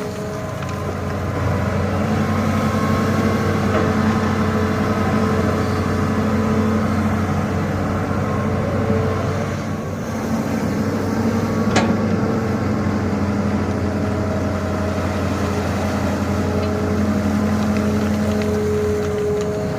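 Excavator's diesel engine running steadily, its pitch easing and swelling slightly as the load changes, with a single sharp knock about twelve seconds in.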